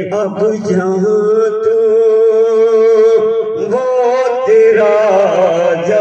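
A man's voice singing an Urdu nazm into a microphone, in long drawn-out melodic lines with held, wavering notes.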